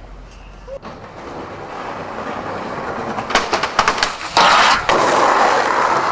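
Skateboard wheels rolling on rough tarmac and growing louder, then a run of sharp clacks as the board pops onto a steel stair handrail and grinds down it, with the loudest, harshest scraping about four and a half seconds in. The wheels keep rolling steadily after the landing.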